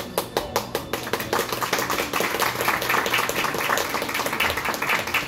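Audience applause in a small theatre: a few separate claps at first, filling within about a second into steady clapping from the crowd.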